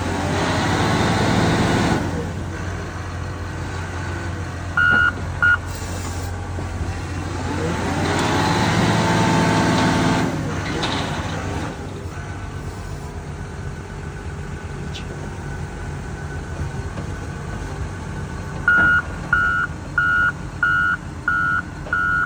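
Loader's diesel engine running, revving up twice as it works the bale clamp. Near the end its reversing alarm starts beeping steadily, about one and a half beeps a second, as the machine backs up.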